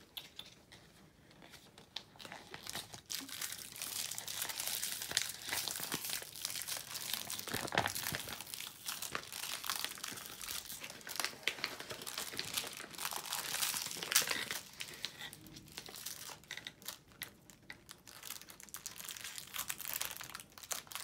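Small plastic wrapper of an L.O.L. Surprise toy crinkled and torn open by hand: a dense crackling that starts about two seconds in and goes on, with brief pauses, to the end.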